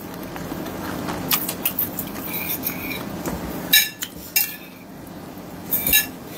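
Fork and spoon clinking against a plate a few times, the loudest clinks about four seconds in and near the end, over a low steady background.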